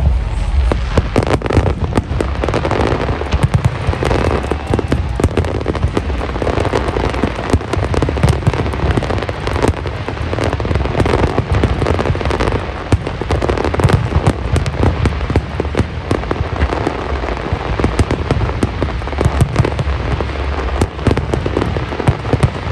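Aerial fireworks display: a rapid, unbroken run of booming shell bursts mixed with dense crackling.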